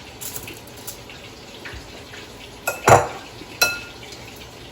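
Metal kitchen utensils and dishes clinking: a few light taps, then three sharp knocks in the last second and a half, the last two ringing like metal struck on metal.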